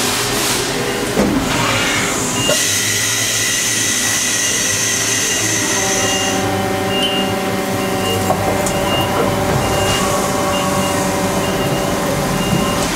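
Haas VF-3 automatic pallet changer cycling, its mechanism running steadily over the din of other machines in the shop. A short high beep repeats about once a second, and there is a hiss from about two and a half to six and a half seconds in.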